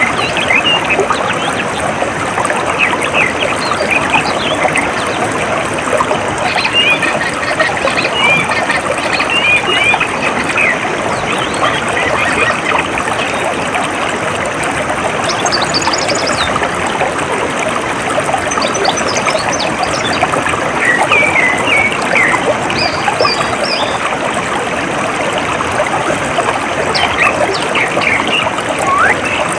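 Steady trickling and flowing of shallow stream water, with many small birds chirping in short high calls throughout.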